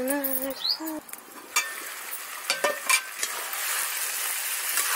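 Spiced vegetable curry frying on high heat in a kadhai over a wood fire: a few sharp metal clinks as the lid comes off and the spatula hits the pan, then steady sizzling with stirring that grows louder near the end.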